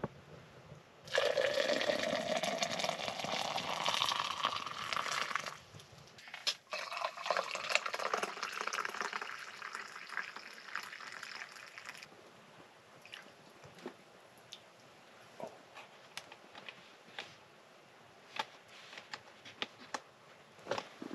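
Hot coffee poured from a camping coffee press into a steel mug, in two pours whose splashing rises in pitch as the vessel fills. Faint scattered ticks follow.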